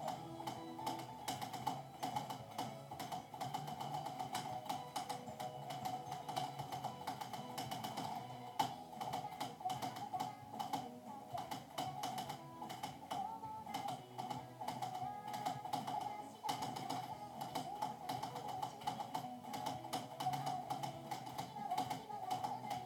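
Continuous rapid typing on a Genius mechanical keyboard with black switches: a dense run of key clicks, over background music.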